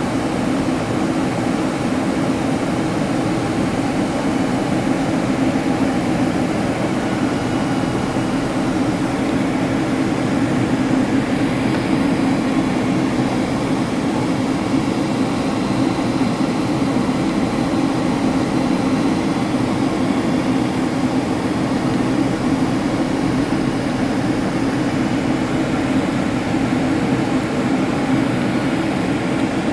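Steady cabin noise of a Boeing 767-300 airliner in flight on approach, heard from inside the cabin: an even, unchanging drone of engines and airflow with no sudden sounds.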